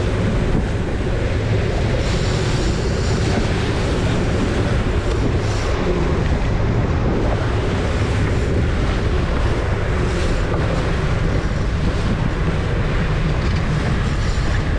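Small boat under way at sea: steady engine and water noise mixed with wind buffeting the action camera's microphone, cutting off abruptly at the end.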